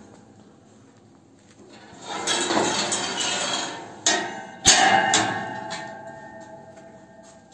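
Steel parts clattering and clanking, with a few sharp metal strikes; the loudest, a little past the middle, leaves a ringing tone that slowly dies away.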